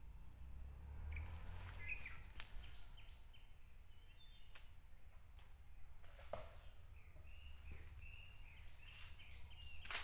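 Faint forest ambience: a steady high drone of insects, with scattered short bird chirps and a few soft clicks from twigs being handled.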